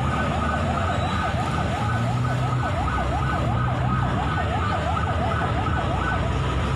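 Emergency vehicle siren sounding in a fast up-and-down yelp, about three sweeps a second, stopping about six seconds in, over a low steady rumble.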